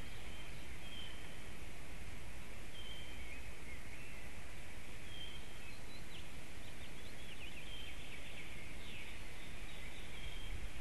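Small forest songbirds calling: five short, high whistled notes a couple of seconds apart, with a run of quick chirps in the second half, over a steady low background rumble.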